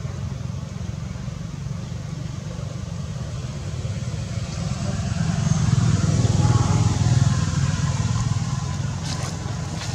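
Low, steady engine hum of a motor vehicle, growing louder past the middle and easing off again, as if it passes by.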